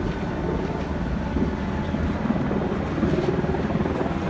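Helicopter circling overhead, its rotor chop a steady low rumble.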